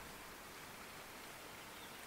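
Faint outdoor ambience: an even, low hiss with no distinct events.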